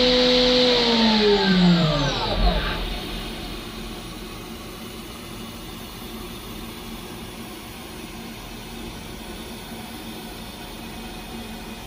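High-speed spindle of a Haas UMC-750SS with a ceramic end mill, running out of the cut with a steady whine, then spinning down in a falling whine over about two seconds as a hiss cuts out. After that only a low, steady machine hum remains.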